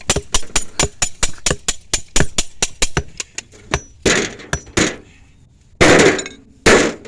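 Rapid hammering, about six or seven even blows a second, stopping about three and a half seconds in. It is followed by several short noisy bursts, the loudest two near the end.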